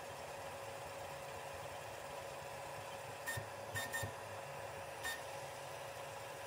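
FLSun Super Racer delta 3D printer printing, with a quiet, steady hum from its fans and stepper motors. There are four short, high chirps from the machine between about three and five seconds in.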